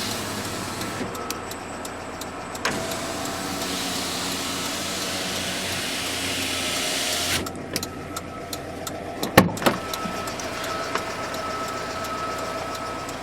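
Electric window motor of a GAZelle-Business truck door running as the glass moves, cutting off sharply about seven seconds in, followed by a few sharp clicks and knocks.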